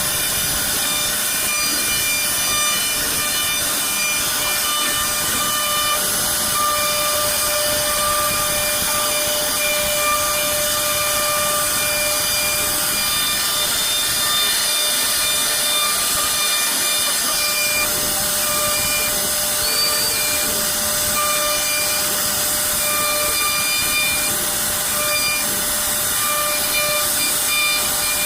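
CNC router spindle carving wood: a steady whine over a constant hiss of cutting.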